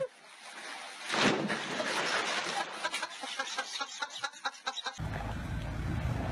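Water splashing and sloshing in an inflatable above-ground pool as a heavy man drops into it. About five seconds in it gives way to the steady low rumble of a vehicle engine.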